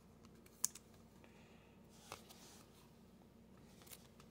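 Nearly silent handling of a trading card in plastic protectors: three light plastic clicks and taps as the sleeved card is handled and slid into a rigid holder, the sharpest a little over half a second in.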